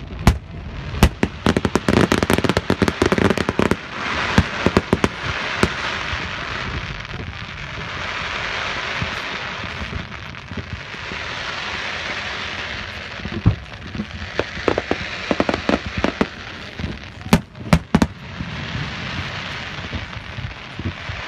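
Aerial fireworks display: a rapid string of pops and bangs in the first few seconds, stretches of steady rushing noise between, and a few louder booms in the last third.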